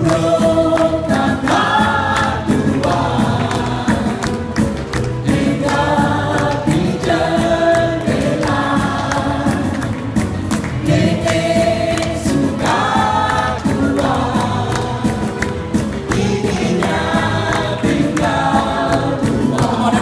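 A small mixed group of men and women singing a Malay folk song together into microphones, phrase after phrase, over an accompaniment with a steady beat.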